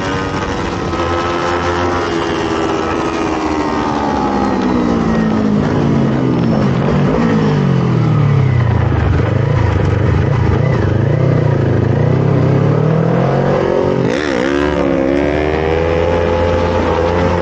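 Sport motorcycle engine at track speed from an onboard camera. The engine note falls over several seconds as the bike slows, stays low and wavering for a few seconds, then rises again as it accelerates. There is a short sharp crack about fourteen seconds in.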